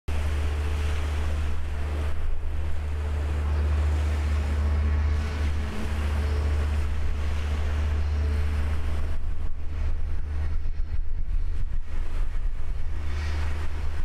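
Wind buffeting the microphone over a steady low hum of a backhoe dredger's machinery running across the water. From about nine seconds in, the wind comes in choppier gusts.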